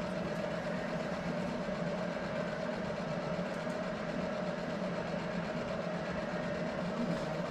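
Steady mechanical hum with a constant mid-pitched tone, unchanging throughout.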